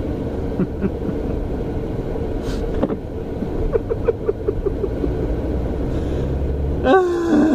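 Steady car-cabin rumble of a car being driven. A man gives a run of short chuckles midway and a louder falling laugh near the end.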